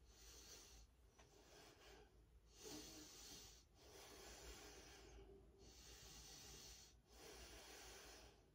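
Faint, steady breathing: soft breaths of about a second each, one after another with short pauses, from a woman holding a yoga headstand.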